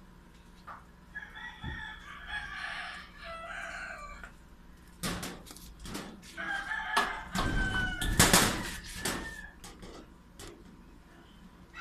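A rooster crows once, a long call, then a sheet-metal door squeaks, clanks and is banged shut with a loud rattle a little past the middle. Another crow begins right at the end.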